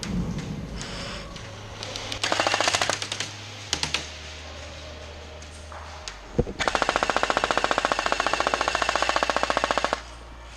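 Airsoft M249 machine gun firing full-auto bursts: one burst about two seconds in, two short bursts just after, then a long burst of about three and a half seconds starting past the halfway point.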